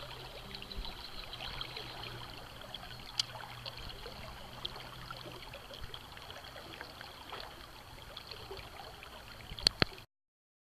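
River water flowing and trickling steadily, with faint scattered clicks. Two sharp knocks come near the end, then the sound cuts off.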